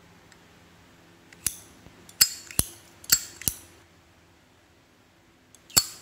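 High-polish brass Zippo lighter's hinged lid clicking open and snapping shut, six sharp metallic clicks: one, then four in quick succession, then one more near the end.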